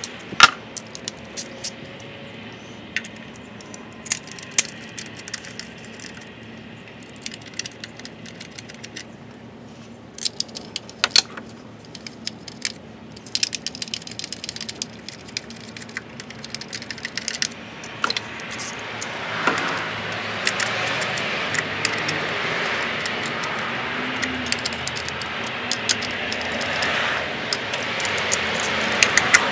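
Metal hand tools and engine parts clinking and rattling in an engine bay: irregular sharp clicks and taps. About two-thirds of the way in, a steady background hiss rises and stays.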